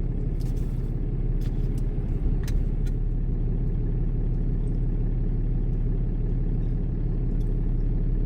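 Pickup truck's engine running, heard from inside the cab as a steady low drone. A few faint clicks in the first three seconds.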